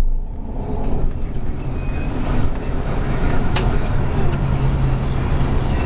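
City bus driving, heard from inside: steady engine drone with road and tyre noise, and one sharp click about three and a half seconds in.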